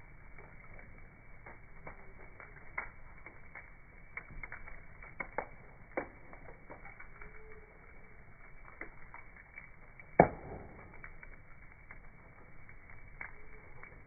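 Bonfire crackling in slowed-down slow-motion playback, so the pops sound low and dull: irregular scattered pops, with one loud pop about ten seconds in.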